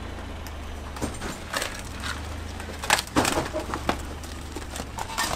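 A low steady engine rumble, like a vehicle idling, under scattered crunches and knocks, the loudest cluster about three seconds in.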